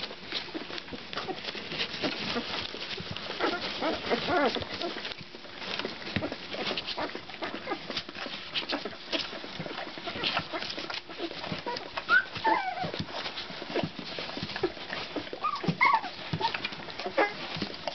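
Labrador puppies, about two weeks old, giving short high squeaks and whimpers, a couple near the middle and again near the end. Under them runs a near-constant patter of small wet clicks and rustles from the mother licking the litter and the puppies nursing and shifting on newspaper bedding.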